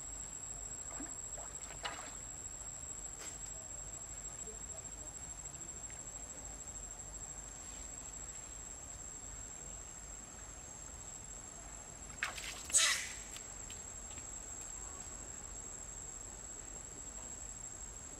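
Insects calling steadily in one high, even tone over a faint outdoor background. A short, sharp noise stands out about thirteen seconds in, the loudest moment, with a fainter click near two seconds.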